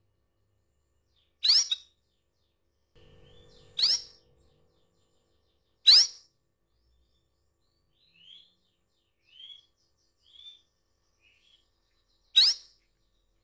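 Female domestic canary calling: four loud, short, sharp call notes a few seconds apart, with a few softer chirps in between during the second half. These are the calls a hen canary makes to draw a male.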